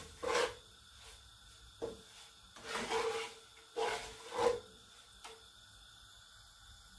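A spoon scraping around a non-stick kadhai, stirring sugar into oil in several uneven strokes, the loudest about three and four and a half seconds in.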